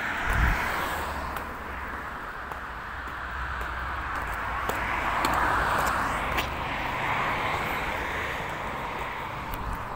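Distant vehicle noise: a steady rushing that swells about five seconds in and then eases, over a low rumble, with a few small knocks from the phone being handled.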